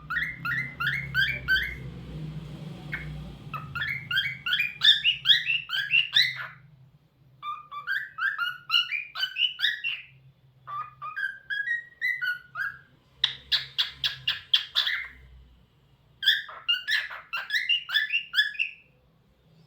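Pet cockatiel singing: quick runs of chirping, whistled notes in about six phrases, with short pauses between them.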